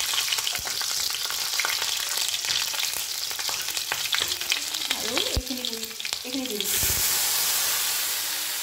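Whole spices and green chillies sizzling in hot oil in a kadai, with many sharp crackles and pops. About two-thirds through, a wet ground-spice paste goes into the oil and the crackling gives way to a steadier, louder hiss as it steams.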